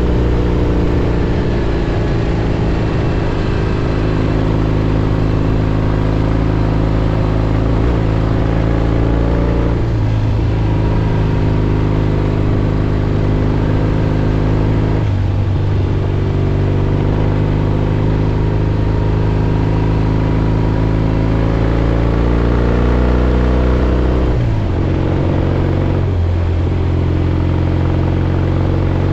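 1967 Triumph Bonneville T120's 650 cc parallel-twin engine pulling the motorcycle along, heard from the rider's helmet camera, over steady wind and road noise. The engine note rises and falls with speed and changes pitch abruptly about four times, at gear changes: around ten seconds in, fifteen seconds in, and twice close together near the end.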